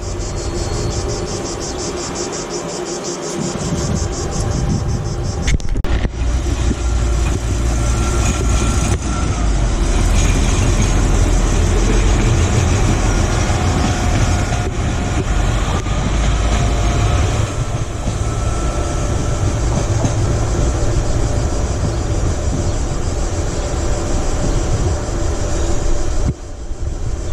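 A regional passenger train running past on the station tracks: a loud, steady low rumble of wheels and running gear with a few faint steady tones over it. It begins suddenly about six seconds in, after a quieter stretch of station ambience, and cuts off shortly before the end.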